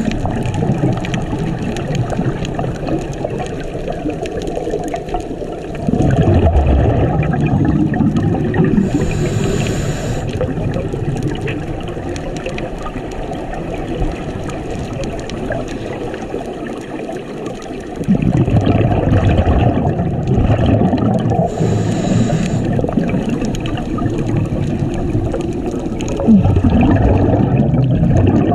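A scuba diver breathing through a regulator, heard underwater: short hisses on the inhale and loud bubbling rumbles on the exhale, three bouts of bubbles several seconds apart over a constant wash of water noise.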